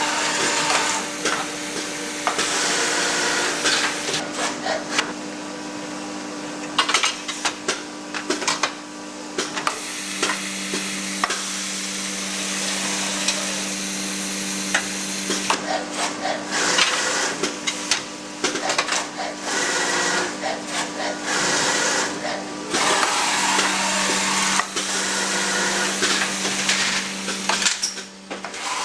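Filotec auto-load CNC scoring machine for printed circuit boards running: a steady mechanical hum throughout, a lower hum coming in about ten seconds in, and many irregular clicks, knocks and hissing stretches as it handles and scores a board panel.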